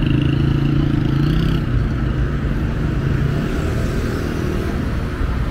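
Street traffic, with a motor vehicle's engine running close by as a steady hum that fades out about three and a half seconds in.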